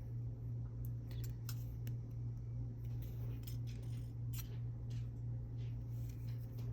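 Faint scattered clicks and ticks of fine jewelry wire and beads being handled as the wire is wrapped into small loops, over a steady low electrical hum.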